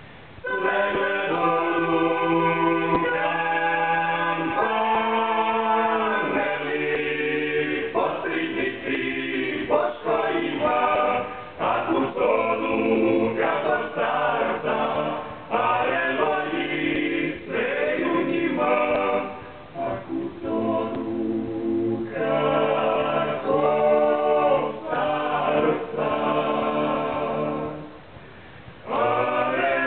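Male vocal ensemble singing a cappella in close harmony, several men's voices together in phrases separated by short breaths, with a longer pause near the end before the next phrase begins.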